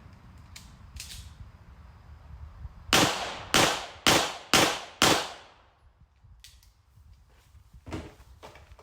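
Five pistol shots fired in quick succession, about half a second apart, each followed by a short ringing tail.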